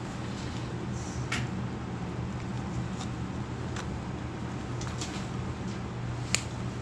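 Steady low hum of the room, with a few light clicks and taps at the counter as a card and papers are handled; the sharpest tap comes near the end.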